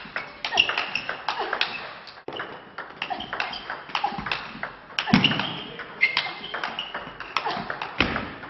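Table tennis rally: the ball clicking off rubber bats and the table in a quick, irregular series of sharp ticks, some with a short ping.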